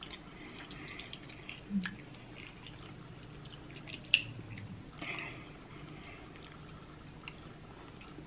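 Quiet wet chewing and mouth sounds from eating creamy shrimp Alfredo pasta, with scattered small smacks and clicks and one sharper click about four seconds in.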